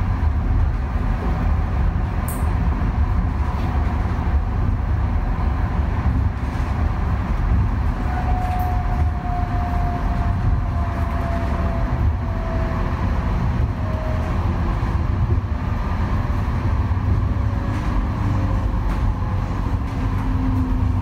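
Interior running noise of an Alstom Citadis Dualis tram-train on the T11 Express: a steady low rumble of wheels on rail, with a thin whine that drifts slightly downward in pitch in the middle and again near the end.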